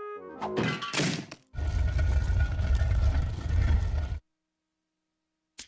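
Cartoon sound effects: a few quick descending notes and swishes, then a long, loud rumbling noise that cuts off suddenly, followed by a few sharp clicks near the end.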